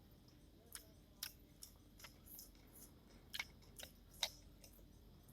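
Someone eating Maggi instant noodles: faint, scattered small clicks of chewing and mouth noises, about a dozen spread over a few seconds, over a near-silent background.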